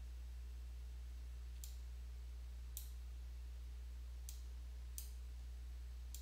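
About five separate computer mouse-button clicks, spaced irregularly, over a steady low electrical hum.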